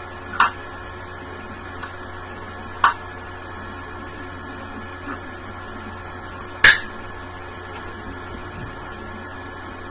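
Three short, sharp clicks from the lips and chewing gum while a large bubblegum bubble is held and blown bigger; the third click is the loudest. A steady low electrical hum runs underneath.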